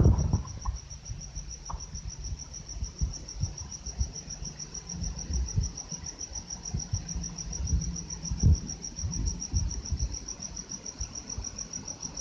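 Cricket chirping: a steady high-pitched pulsed trill of about five chirps a second, with faint low thumps underneath.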